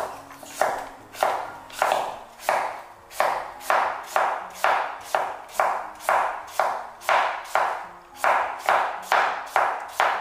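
Chinese cleaver slicing firm, peeled pumpkin into thin slices on a wooden cutting board: a steady run of chops, about two a second, each a sharp knock of the blade on the board.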